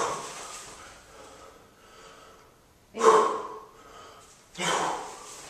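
Sharp, loud breaths of a man snatching a 32 kg kettlebell, in time with the lift. One comes at the start, then two more about three and four and a half seconds in, with quieter breathing between.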